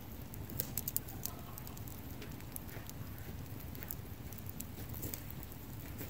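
Wood campfire crackling, with irregular sharp pops of burning logs, a quick cluster of them about a second in, over a low steady rumble.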